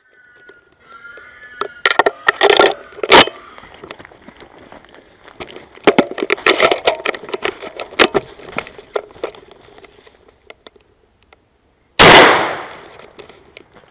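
Footsteps crashing through brush and branches snapping, with several sharp knocks, as a hunter hurries through woodland. Near the end a single loud gunshot rings out and dies away over about a second: the shot to finish a wounded wild boar.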